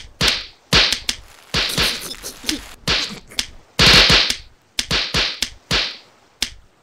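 Bubble wrap being popped: an irregular run of sharp snapping pops, one to three a second, some coming in quick clusters.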